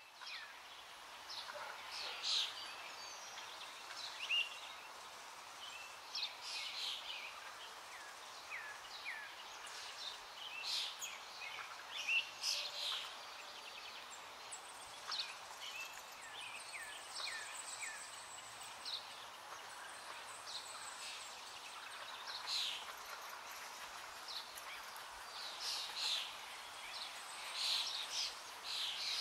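Small birds chirping and twittering in short, quick calls scattered throughout, over a steady background hiss.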